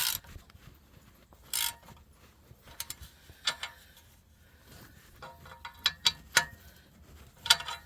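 Ratchet wrench clicking in short runs, with separate sharp metallic clicks, as a fastener on the exhaust is worked on.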